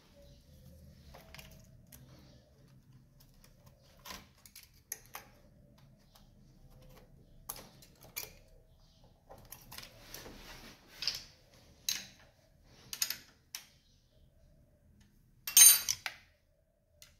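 Scattered clicks and clacks of hand tools and metal parts being handled in an open engine bay, with one louder metallic clatter near the end.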